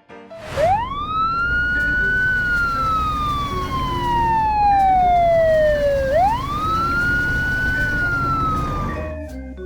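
Ambulance siren wailing in two slow cycles, each rising quickly and then gliding slowly down, over a low rumble.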